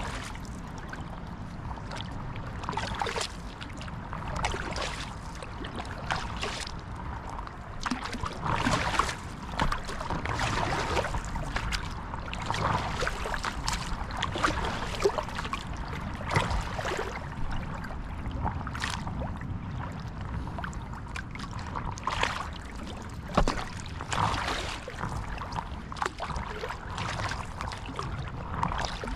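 Water splashing and trickling around a stand-up paddleboard as it is paddled, with irregular splashes over a steady wash of water.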